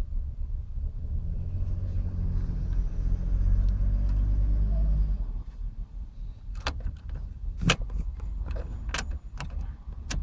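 Citroen C3's 8HZ 1.4 HDi diesel being cranked on the starter for about five seconds without catching, then the cranking cuts off suddenly. A series of sharp clicks and knocks follows. The engine won't start; the fault was later traced to a broken +12 V feed to the engine ECU.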